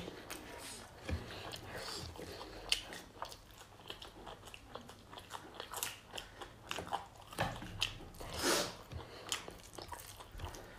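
Close-miked eating: chewing and biting with crunchy, crackling mouth sounds as food is eaten by hand. A louder, longer noisy sound comes about eight seconds in.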